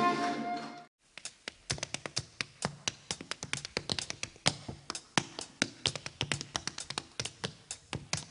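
A sung ballad with accompaniment fades out in the first second. Then a tap dancer's shoes strike the stage in quick, uneven rhythms of about five taps a second, with no music behind them.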